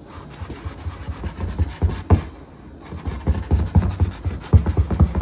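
Glass baking dish of sauced enchiladas being jiggled and shifted on a tabletop to work the sauce down to the bottom: an irregular run of dull knocks and scraping, busier in the second half.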